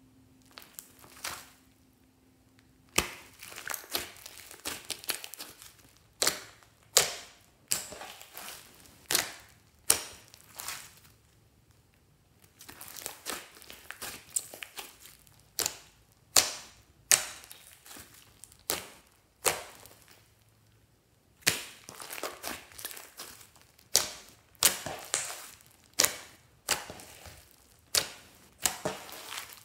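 Thick pink slime studded with small beads being kneaded and poked by hand: a string of sharp, sticky pops as air pockets burst, with stretches of denser crackling in between. The first few seconds are quieter.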